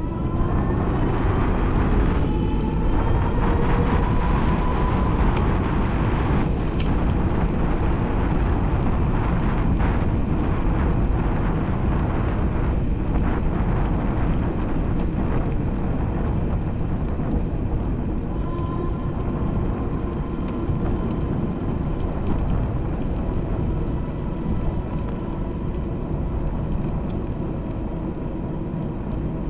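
Wind noise and rolling noise on a moving action camera's microphone along a paved path, a steady rumble throughout. A whine rises in pitch over the first few seconds, then holds steady.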